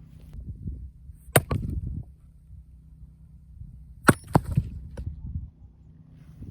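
Heavy axe splitting firewood: two sharp strikes, about a second and a half in and again near four seconds. Each strike is followed by a quick second crack and the clatter of the split wood.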